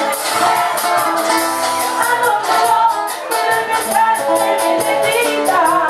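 Live band playing: a woman singing over guitars and drums, with percussion ticking at a steady beat.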